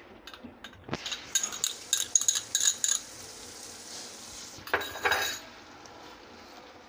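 Spoon clinking and scraping while yogurt is spooned into a pot of simmering curry, with a run of sharp clinks in the first few seconds and a short burst of scraping about five seconds in. A faint sizzle from the pot runs underneath.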